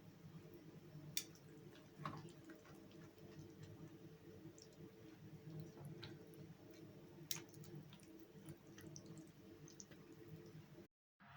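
Faint steady low hum with a few sharp small clicks and ticks scattered through it; the sound cuts out completely for a moment near the end.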